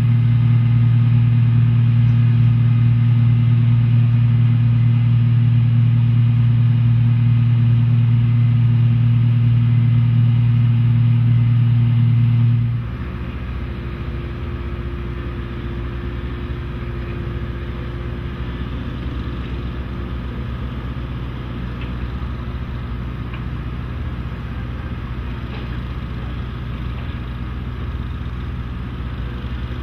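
Diesel engine running steadily at a constant speed with a strong low hum; about 13 seconds in it gives way abruptly to a quieter, steady engine rumble.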